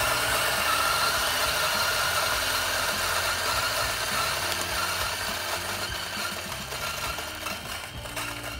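Maquinos SD-X single-dose electric burr coffee grinder running, grinding a 17 g dose of beans fine for espresso into a steel dosing cup: a steady motor whine over the grinding rattle, getting gradually quieter toward the end as the dose runs through.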